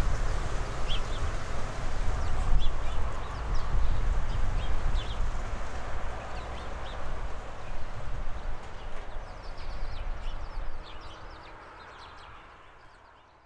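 A flock of small birds, sparrows at the feeders, chirping: many short, high chirps scattered throughout, over a steady low rumble. It all fades out over the last couple of seconds.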